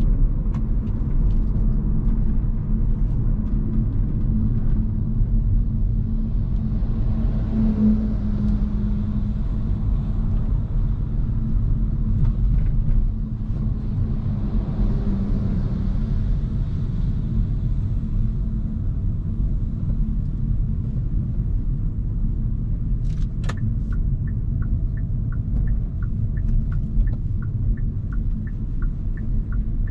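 Steady road and tyre rumble inside a moving Hyundai Kona Hybrid, swelling twice as other traffic goes by. About two-thirds of the way through, a sharp click is followed by the steady ticking of the turn signal, about twice a second.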